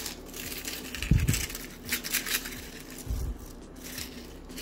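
Oven-dried onion slices crackling and crunching as they are crushed between the fingers, with a couple of dull knocks about one and three seconds in. The crisp crackle is the sign that the onion is fully dried into crunchy onion vathal.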